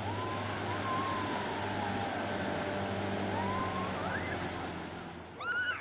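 Motorboat engine running at towing speed, its whine slowly falling and then rising in pitch over a steady low hum. Near the end, a brief high yell.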